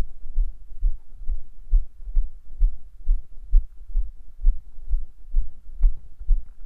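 Rhythmic low thuds, a little over two a second, each with a faint gritty crunch: the footfalls of someone jogging on a dirt pitch while carrying a phone, which jolt its microphone.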